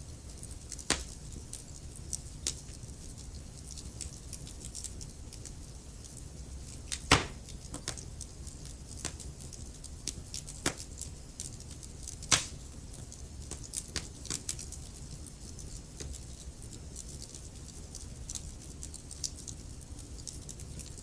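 Wood fire burning in a fireplace, with a steady low rumble and hiss and irregular sharp crackles and pops from the logs. The loudest pops come about seven seconds in and again about twelve seconds in.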